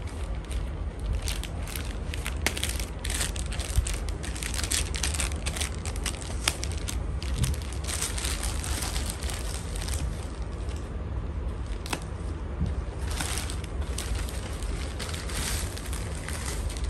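Scissors cutting through a parcel's packaging, and the wrapping crinkling and rustling with many sharp crackles as it is torn and pulled open. A low steady hum runs underneath.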